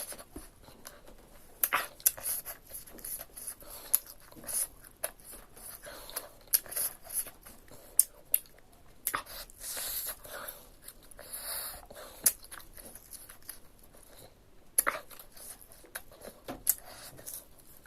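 Close-miked eating sounds: a person chewing and biting spicy pork curry, with irregular wet mouth clicks and smacks.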